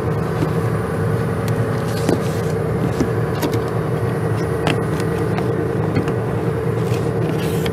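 Cummins 6BT5.9 straight-six diesel engine of an enclosed towable screw air compressor, running steadily at raised warm-up speed with the compressor not yet on load, a fairly quiet hum through its closed sound-proofed canopy. A few light clicks from a cardboard box being handled close by.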